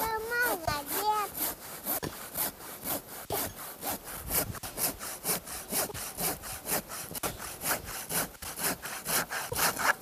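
Hand saw cutting through a log, back-and-forth strokes at a steady rhythm of about three strokes a second.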